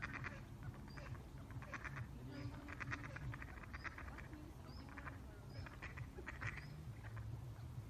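Ducks quacking in short repeated bursts, about one or two a second, with faint high chirps over a low steady rumble.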